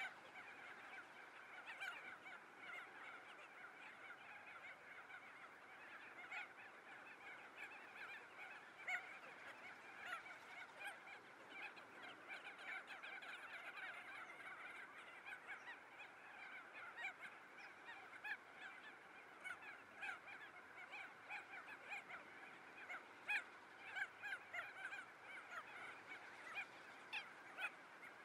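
Faint, dense chorus of many animal calls: a continuous chatter of short overlapping calls with no pause, a few standing out louder now and then.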